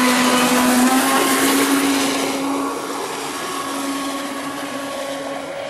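Electric motor of a Thunder Tiger Desperado RC catamaran speedboat running at speed: a steady motor whine over a rushing hiss, loudest for the first two seconds or so, then fading as the boat draws away.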